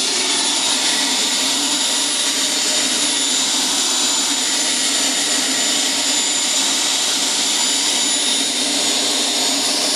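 Model jet turbine engine idling steadily at about 35,000 rpm: a constant rushing hiss with steady high-pitched whine tones.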